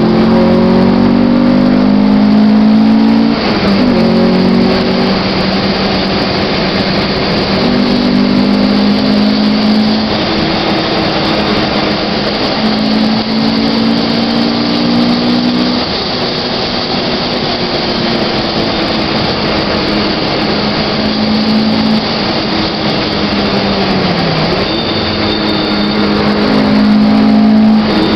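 Honda Civic engine running at high revs on a fast lap, heard from inside the cabin over heavy wind and road noise. The engine note drops briefly about three-quarters of the way through, then climbs again.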